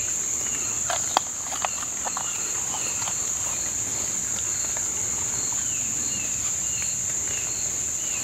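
Steady high-pitched drone of an insect chorus, with a short falling chirp repeating about twice a second over it. A few sharp clicks come a little after a second in.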